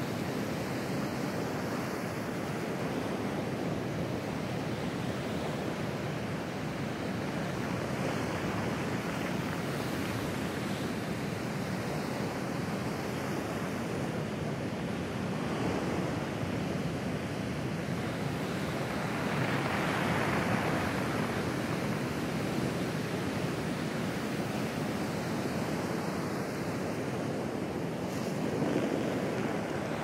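Pacific Ocean surf breaking and washing up over a pebble beach, a continuous wash of noise that swells as each wave comes in. The largest surge comes about two-thirds of the way through, with another near the end.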